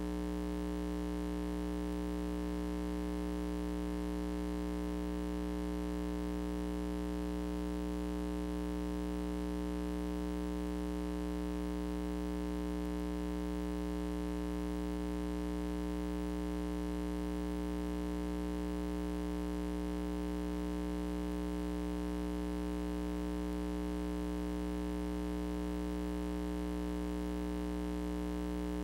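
Steady electrical mains hum: a low buzz with several evenly spaced overtones and a faint hiss under it, never changing in pitch or level.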